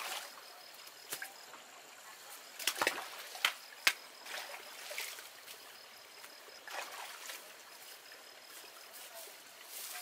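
Water splashing in a shallow stream as a person works in it by hand and foot, with a few sharp splashes about three seconds in, over a faint trickle of running water.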